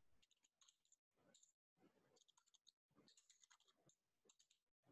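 Very faint computer keyboard typing: light key clicks in short runs with brief pauses between them.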